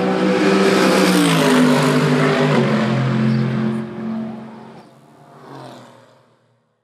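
Race car going past at speed: a loud engine with a rush of noise that peaks in the first couple of seconds, the engine note dropping in pitch as it passes, then fading away to nothing near the end.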